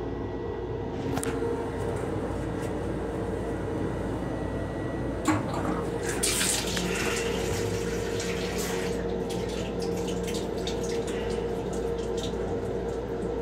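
Steady hum of an M7 railcar throughout; about five seconds in, a sharp click, then the sink faucet in its restroom starts running water into the basin.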